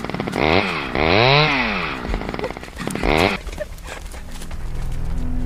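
Two-stroke chainsaw revving in three bursts, its pitch climbing and falling each time. The revving stops a little over three seconds in, and a steady low engine hum takes over.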